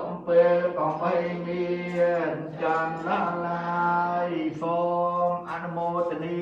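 Theravada Buddhist monks chanting in unison on a steady, near-monotone pitch, the syllables running on with only short breaks between them.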